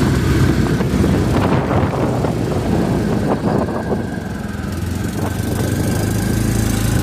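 ATV engine idling steadily, with a scatter of clatters and knocks through the middle.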